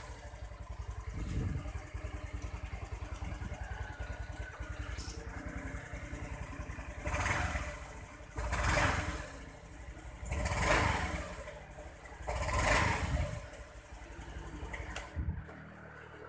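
Honda Vario 125 fuel-injected single-cylinder scooter engine idling with a steady low putter. Its throttle is blipped four times in the second half, each rev swelling and falling back. The engine cuts off near the end. On the throttle the pickup is sluggish, as if something is holding it back, which is the fault the owner is demonstrating.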